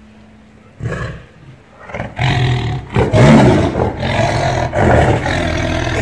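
Tiger growling: a short growl about a second in, then from about two seconds on a long, loud run of deep growls and roars.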